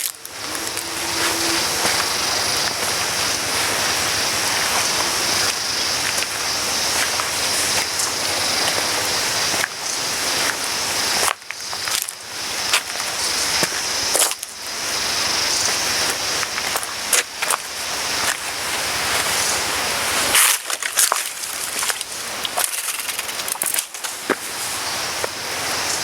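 ATV ride noise: a rushing wind-and-rattle noise across the microphone, with sharp crackles and several brief dropouts, and the vehicle's engine running underneath.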